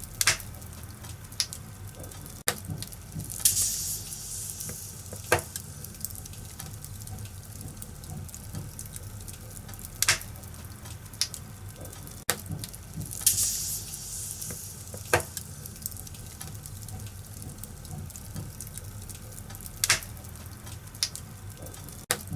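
Fireplace fire crackling: a steady low rumble with sharp pops every second or few, and two brief hissing flare-ups.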